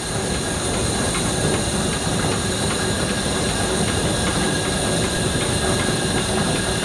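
Liberty ship's steam cargo winches running under load, a steady mechanical clatter with a fast, regular ticking.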